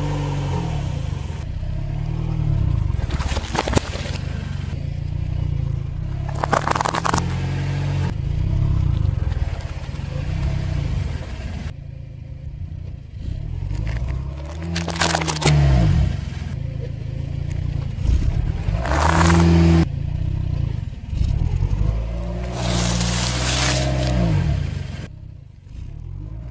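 A car engine runs low while its tyre rolls over and crushes aluminium drink cans and an aerosol spray can. Several short crunches and fizzing or spraying bursts come one after another through the steady engine rumble.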